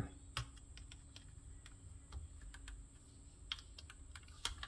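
Small irregular clicks and scratches of a thin metal tool picking at the sticker and plastic underside of a Microsoft Wireless Mobile Mouse 3500, with the sharpest click near the end.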